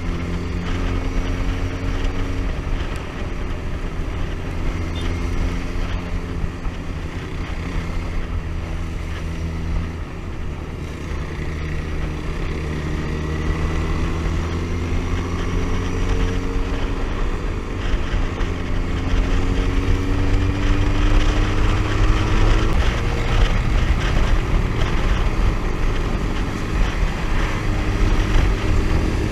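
Motorcycle engine running under way with wind rush, heard from the rider's seat. The engine's pitch climbs slowly as it accelerates and drops back at a gear change in the last third.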